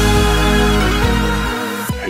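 Electronic intro music with heavy bass and held synth tones; the bass drops out about a second and a half in and the music cuts off near the end.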